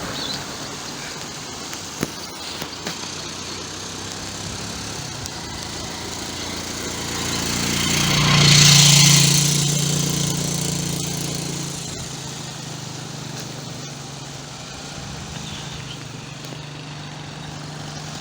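A motor vehicle's engine coming closer and passing, loudest about halfway through, then running on more quietly with a steady hum.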